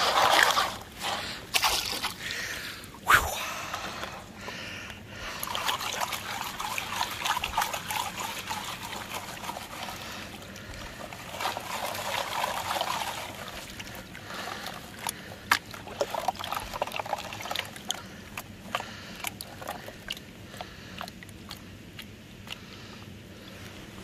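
Water and gravel sloshing in a plastic gold pan as it is panned in a creek: swirling surges of water washing out over the rim, with occasional clicks of stones knocking in the pan. This is the light gravel and mud being washed off to leave the heavy concentrate, and it grows quieter toward the end as less material remains.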